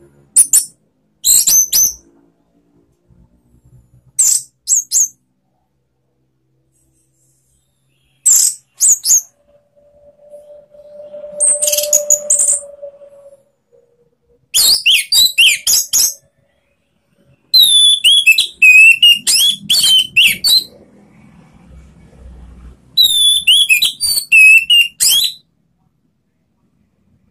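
Orange-headed thrush singing in about seven short bursts of loud, rapid, high-pitched whistled phrases, separated by pauses of a second or two. It is a varied song packed with mimicked phrases.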